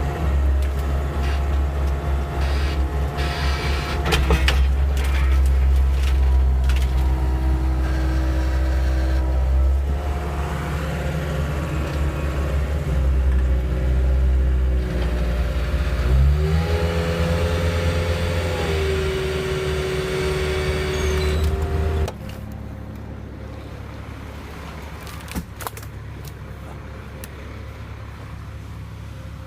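Caterpillar 262C skid steer's diesel engine running loud and steady with a whine over it, its pitch stepping up about sixteen seconds in. The machine sound drops away abruptly about twenty-two seconds in, leaving a quieter low background.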